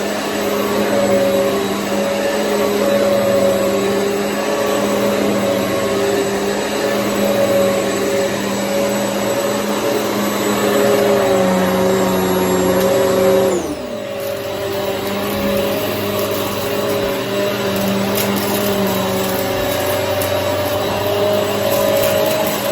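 Hoover EliteSwivel upright vacuum cleaner running steadily, a motor hum over a rush of airflow. A little past halfway its pitch and level drop abruptly, then it settles back into the same steady hum.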